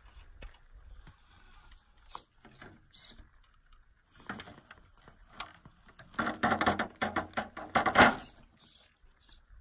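An Element RC scale rock crawler clambering and tumbling over boulders: scattered clicks and knocks of its tyres and plastic body on stone. About six seconds in comes a louder two-second stretch of scrabbling and clattering, loudest near the end of it.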